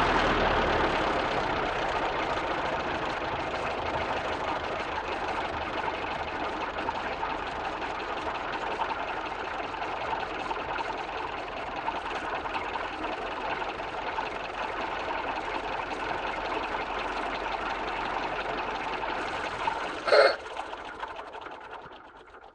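Vintage car engine idling steadily with a fast, even clatter, settling down from faster running at the start. About twenty seconds in comes one brief loud sound, then the engine sound dies away.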